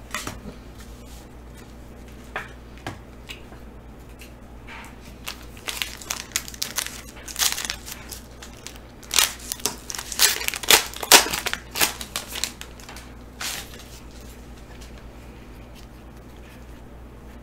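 Foil wrapper of a 2019 Panini Prizm football card pack crinkling and tearing as it is pulled open by hand. A run of sharp crackles starts about five seconds in, is loudest in the middle and dies away a few seconds later.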